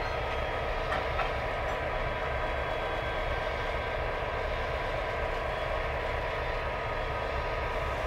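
Pacific National diesel locomotives X48 and G537 idling at a standstill: a steady low engine rumble with a faint, even whine above it.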